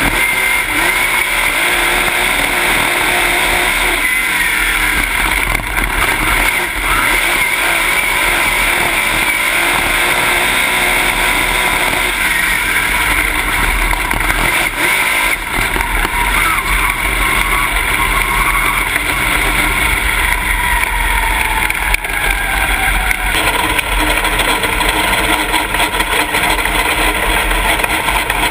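Dirt late model race car's V8 engine running hard, loud from inside the cockpit. The engine sound changes abruptly near the end.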